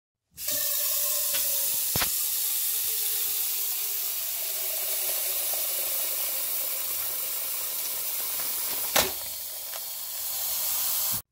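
Kitchen faucet running a steady stream of water into a saucepan, a loud rushing splash with a faint tone slowly falling in pitch as the pot fills. A knock comes about two seconds in, and a louder one about nine seconds in. The sound starts and stops abruptly.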